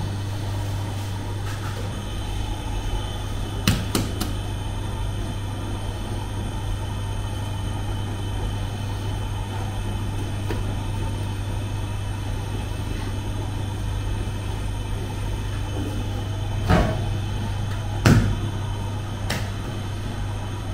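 Steady low hum of bakery machinery, with a few sharp knocks and clanks of dough work on a steel worktable, twice about four seconds in and three times near the end, the loudest among them.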